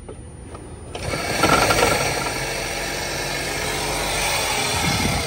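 Toyota Prius 1.8-litre four-cylinder engine starting about a second in and then running steadily. The engine has a failing head gasket that three bottles of Blue Devil sealer have not fixed.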